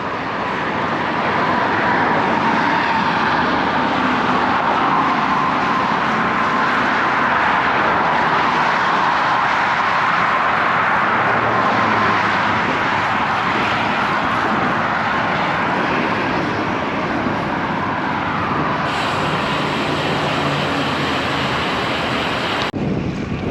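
Steady traffic and road noise from a highway frontage road, heard from a moving road bicycle, with a faint steady whine through much of it. The sound changes abruptly near the end.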